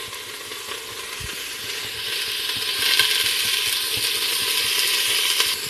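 Vegetables frying in oil in a pan on the gas hob: a steady sizzling hiss that grows louder about two seconds in.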